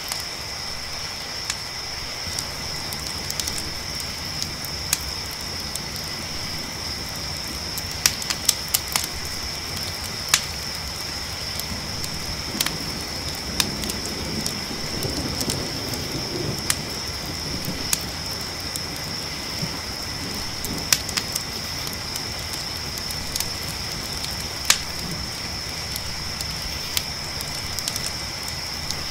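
Campfire crackling, with sharp irregular pops over a steady hiss, and a steady high-pitched chorus of crickets. A low rumble swells briefly around the middle.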